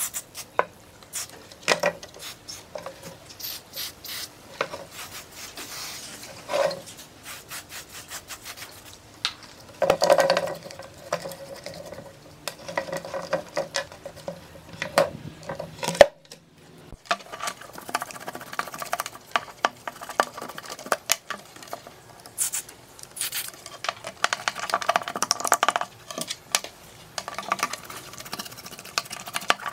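Hands working on amplifier circuit boards on a wooden workbench, with clicks and knocks of the boards and short bursts of aerosol spray. After a brief break about sixteen seconds in, a bristle paintbrush scrubs a small circuit board in repeated rubbing strokes.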